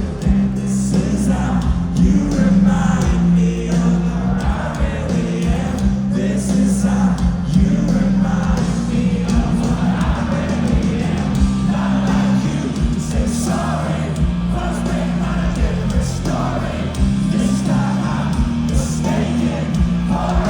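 Live rock band playing at full volume, with heavy bass and drums under a male lead vocal.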